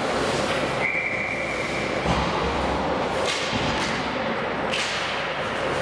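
Ice rink sounds from a youth hockey game: a steady din with sharp knocks and scrapes, most likely skates, sticks and puck, including a thud about two seconds in. A steady high tone lasts a little over a second, starting about a second in.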